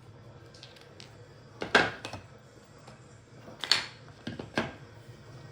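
Four sharp clicks and knocks of small hard objects being handled and set down, the loudest a bit under two seconds in and the rest close together a little past the middle.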